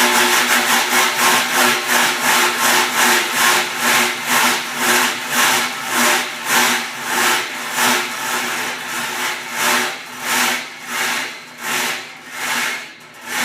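1920s Ludwig & Ludwig train imitation sound-effect instrument playing a steam locomotive's rhythmic chuffs. The beats come quickly at first and slow gradually, as a train coming to a stop, ending near the close.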